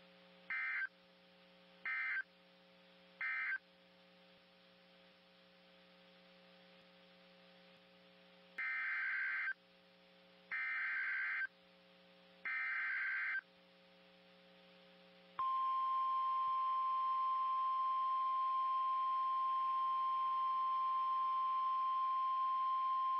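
Emergency Alert System tones from NOAA Weather Radio: three short data bursts of the end-of-message code, then three longer data bursts of the next alert's SAME header, followed about 15 seconds in by the steady 1050 Hz warning alarm tone. A faint low hum sits under the gaps.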